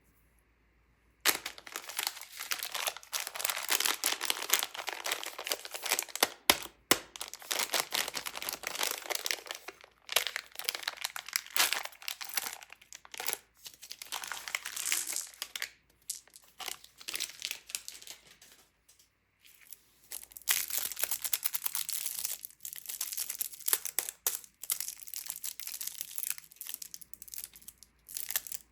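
Candy packaging being handled and opened: wrappers crinkling and tearing, starting about a second in, with a brief lull about two-thirds of the way through.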